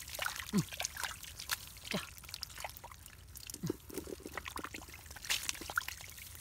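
Bare hands squelching and scooping through wet mud and shallow muddy water, with a steady trickle, scattered wet clicks and slaps, and a few short sucking squelches.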